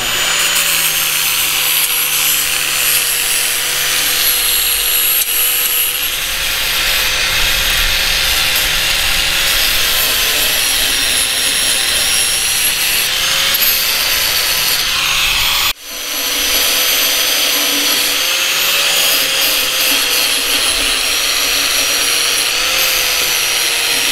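Handheld angle grinder running steadily, its disc grinding the steel of a mower deck. The sound cuts out sharply for a moment about two-thirds through, then comes back at full level.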